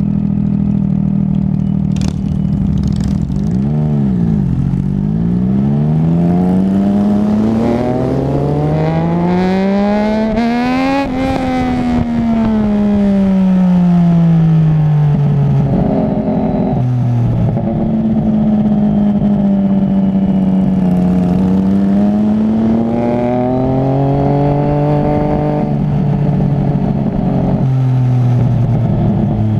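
Motorcycle engine on a backroad ride, its pitch climbing steadily for about seven seconds as it accelerates, then falling away as it slows, holding lower for a while, then climbing and falling once more near the end. Steady wind rush runs underneath.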